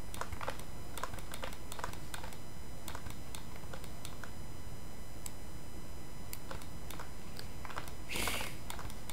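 Scattered computer keyboard and mouse clicks at an irregular pace over a steady background hum, with a short hiss about eight seconds in.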